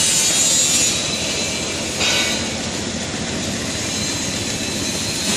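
Nut chopping machine running with a steady, even mechanical noise.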